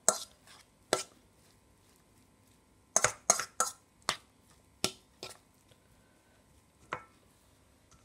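A metal fork clinking and scraping against a stainless steel bowl while mixing flaked salt fish: irregular sharp taps, with a quick run of several about three seconds in.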